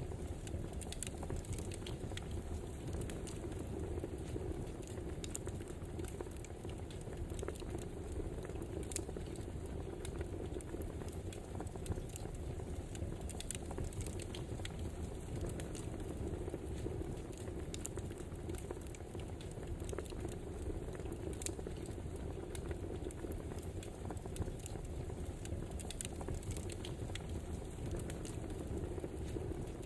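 Wood fire burning, crackling with frequent irregular pops and snaps over a steady low hiss.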